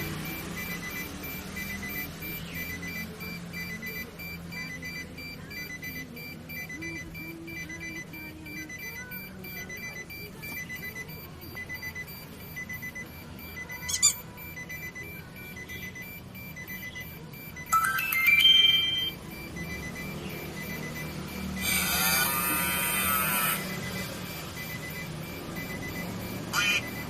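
Electronic beeping, about two short high beeps a second, over a low steady hum. Later come a few louder synthesized sound effects from a custom car-horn sound module, the loudest a sweeping, warbling tone lasting a second or two.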